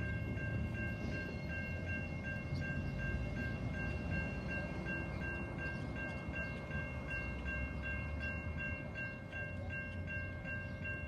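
Electric passenger train approaching from a distance: a low, steady rumble with a high-pitched tone over it.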